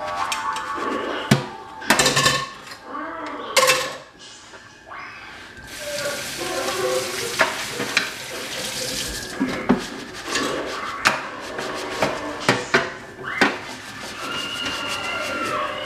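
Dishes being hand-washed in a stainless steel kitchen sink: metal pots, bowls and utensils clanking and knocking against each other and the sink. The faucet runs for a few seconds in the middle.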